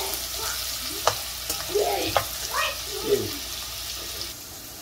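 Diced carrots, potatoes and sweet peppers sizzling in hot curry oil in a pot as a metal ladle stirs them, with two sharp clinks of the ladle against the pot, about one and two seconds in.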